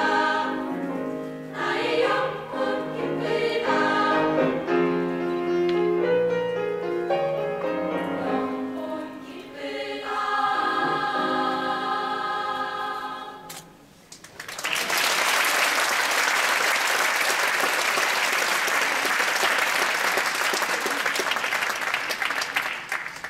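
Girls' choir singing the closing phrases of a hymn, ending on a long held chord that cuts off a little past halfway. After a short pause the audience applauds steadily until the applause dies away at the end.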